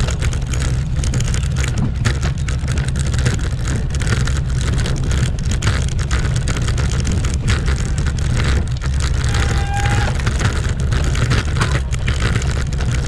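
Road bike rattling hard over cobblestones: a dense, fast clatter of small knocks over a heavy low rumble. A brief high tone sounds about ten seconds in.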